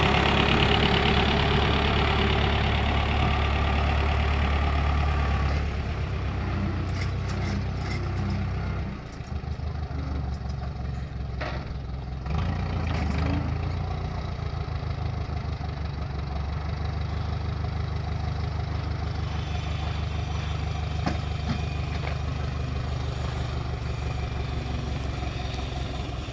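Small farm tractor's diesel engine running under load as it pulls a four-row corn planter, with a steady low firing beat. It is loudest for the first several seconds, then drops back and runs on steadily at a lower level.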